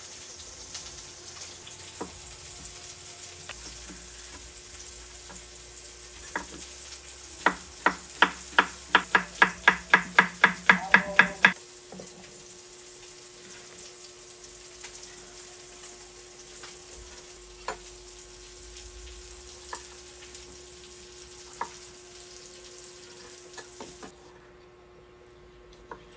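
Food sizzling in hot oil in a frying pan, with occasional light clicks of a utensil. About eight seconds in comes a quick run of about fourteen loud ringing taps lasting some four seconds. The sizzle stops near the end.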